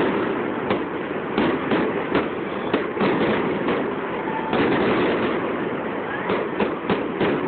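Aerial fireworks going off: an irregular string of sharp bangs, about one to three a second, over a dense, continuous din of further bursts.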